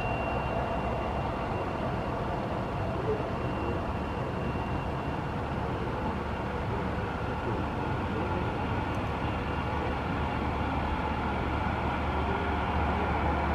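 Embraer E-Jet regional jet's turbofan engines at taxi power: a steady jet whine over a low rumble. A high whine tone fades out about five seconds in.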